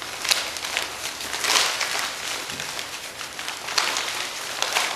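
Kite fabric and the polyurethane replacement bladder rustling and crinkling as the bladder is pulled up through the kite's center strut sleeve. The sound is an uneven run of crackles and swishes, loudest about a second and a half in.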